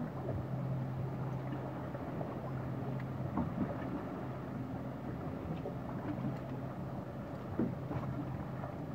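Fishing boat's engine running with a steady low hum, over a wash of water and wind noise, with a few faint knocks.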